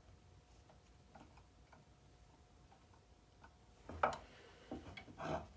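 Handling of a small drill press vise and drill bits at a drill press: faint scattered ticks over a faint steady hum, then a cluster of louder clicks and knocks about four seconds in and again near the end.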